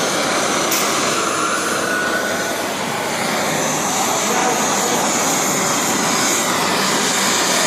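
Gas blowtorch flame hissing steadily while heating a copper pipe elbow for soldering.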